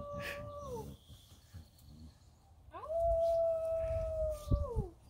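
Arctic wolf howling. The end of one howl falls away in the first second, then a second long howl rises quickly, holds one steady pitch for about two seconds and falls at the end.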